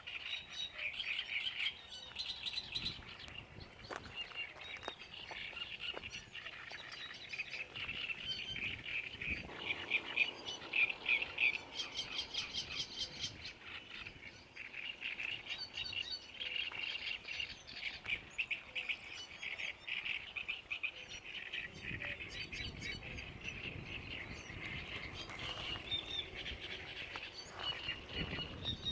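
Small songbirds singing, a continuous stream of rapid chirping and chattering phrases that overlap one another.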